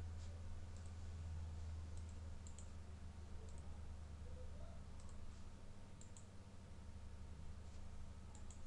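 A few computer mouse clicks, some in quick pairs, over a steady low electrical hum.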